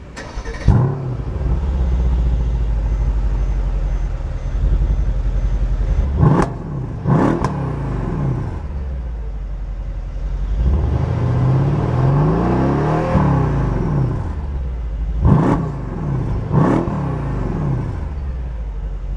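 Mercedes-AMG E63 AMG S twin-turbo V8 engine and exhaust: it fires up with a flare under a second in and settles to a steady idle. It is blipped twice about six seconds in, revs up and down more slowly in the middle, and is blipped twice more later on.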